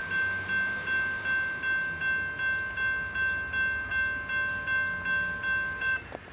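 Railroad crossing bell ringing in even strikes, between two and three a second, as the crossing gates rise after the train has cleared; it cuts off suddenly about six seconds in.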